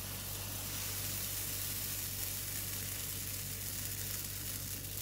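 Oat-and-banana pancake batter sizzling steadily in a hot non-stick frying pan, just poured in, with a steady low hum underneath.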